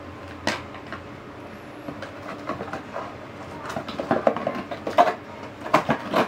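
Toys clattering and knocking against each other as they are handled and put away, a few scattered knocks at first, then a busier run of sharp clacks in the second half.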